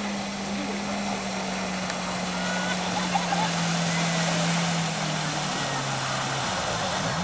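Jet ski engine running under load while towing a banana boat, its pitch dropping in steps through the second half as the throttle eases off, over a steady hiss of spray and wake.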